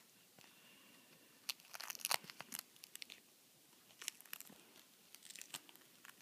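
Duct tape purse being handled close to the microphone: stiff tape crinkling and crackling in short faint spells, loudest about two seconds in.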